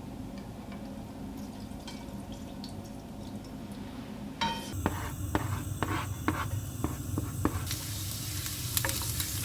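Cooking in a frying pan: a low steady hum, then from about halfway a few knocks of a utensil against the pan, and hot oil beginning to sizzle near the end.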